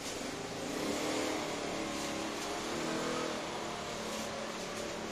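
A motor vehicle's engine passing, its pitch rising and falling, over a steady background hiss.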